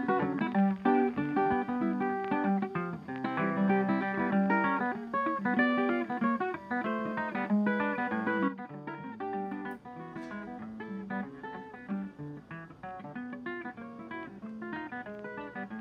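Background music led by plucked and strummed acoustic guitar, dropping in level about halfway through.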